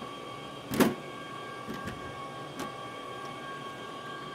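Sheet-metal cover panel of a Dell PowerEdge tower server being set onto the chassis and slid home: one loud clunk less than a second in, then a few lighter knocks. Under it runs the steady hum of rack servers' cooling fans.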